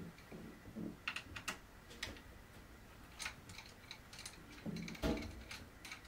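Light clicks and ticks of a precision screwdriver and small metal parts being handled on a mini-ITX motherboard, scattered and irregular, with a soft thump about five seconds in.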